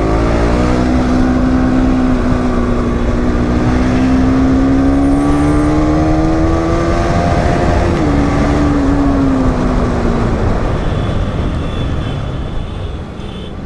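Bajaj Pulsar NS200's single-cylinder engine pulling hard: its note climbs steadily for about eight seconds, dips at a gear change, then falls away as the bike slows. There is a steady low wind rush throughout.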